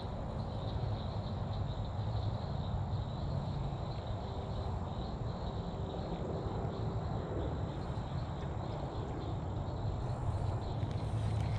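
Wind rumbling steadily on the microphone at a pond edge, over a faint, steady high-pitched animal chorus.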